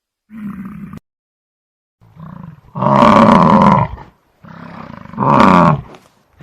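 Buffalo bellowing in a series of deep calls, the two loudest each lasting about a second, with shorter, quieter grunting calls before them.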